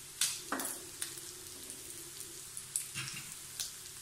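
Slices of pork sizzling steadily on an electric grill-and-hotpot pan, with several sharp clinks and scrapes of a ladle and utensils against the pan.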